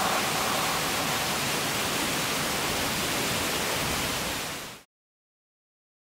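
Waterfall: a steady rush of falling water that fades out about four and a half seconds in.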